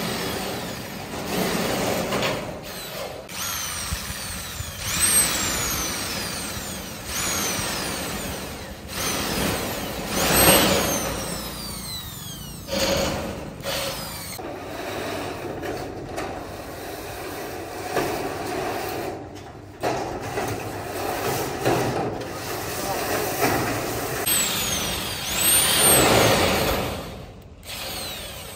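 Handheld power drill driving screws into corrugated metal roof sheeting. The motor revs up and down in repeated bursts, its pitch rising and falling with each one; the loudest bursts come about ten seconds in and again near the end.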